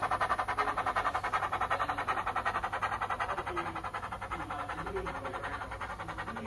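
DCC sound decoder in a 009 Bachmann Baldwin model loco playing recorded steam chuffs of the Ffestiniog Railway engine 'Prince' through the model's small speaker: a rapid, even beat of exhaust beats, growing slightly fainter.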